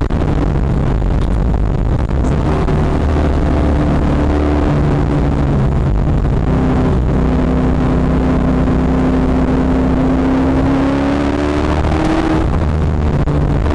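Katech-built V8 of a C6 Corvette Z06 race car, heard from inside the cockpit, running hard on track. Its pitch climbs steadily through the second half, then drops away near the end.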